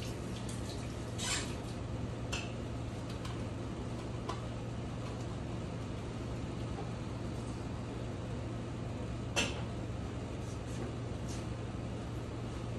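A steady low hum with a few scattered light clicks and taps of small barber's tools being handled, the sharpest about nine and a half seconds in.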